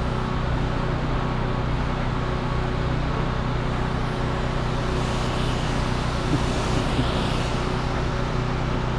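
Steady mechanical drone of a running engine or machine, an even low hum. A hiss swells and fades between about five and seven and a half seconds in.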